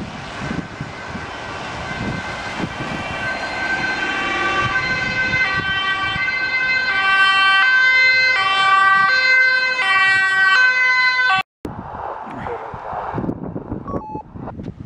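Ambulance two-tone siren alternating between a high and a low note, growing louder as the ambulance approaches. It cuts off suddenly about eleven seconds in and gives way to rushing noise, with a faint siren note near the end.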